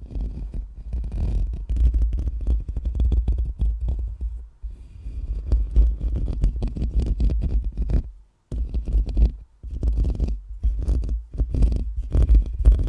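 Fingers or a brush scratching and rubbing directly on a microphone, a rapid run of scratchy strokes with heavy low rumble from the handling, broken by a brief pause about eight seconds in.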